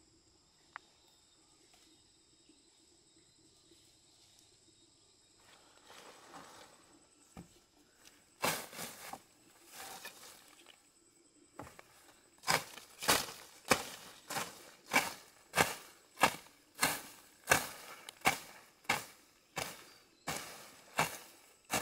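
Quiet at first with a faint steady high whine, then rustling. From a little past halfway come regular crunching strokes, about three every two seconds, each one loud and short.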